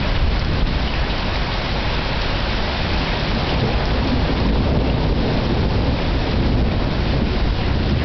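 Heavy rain falling steadily, a dense hiss over a low rumble.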